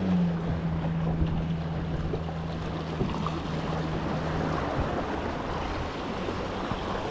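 A motorboat's engine droning steadily across the water, stopping about four and a half seconds in, over waves washing against jetty rocks and wind on the microphone.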